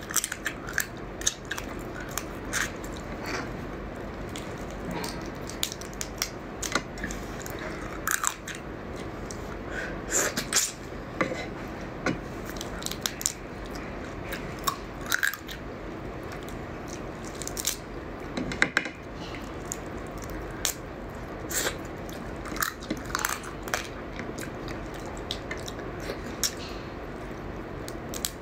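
Close-up eating of raw crab: chewing and biting into crab legs, with many short, sharp cracks and crunches of shell scattered throughout.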